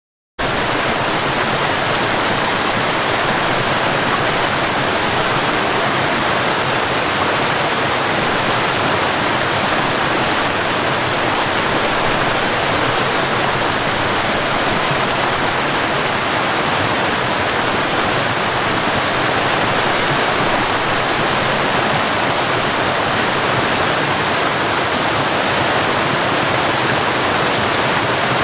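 Waterfall cascading over rocks: a steady rush of water that cuts in abruptly about half a second in.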